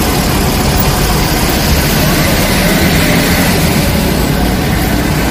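Diesel engine of a large intercity coach running at low revs as the bus edges forward, a steady low rumble mixed with street traffic.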